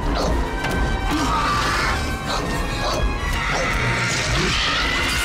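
Film action soundtrack: music with repeated crashes and clattering impacts of objects being knocked about in a metal kitchen, and a child's scream about four seconds in.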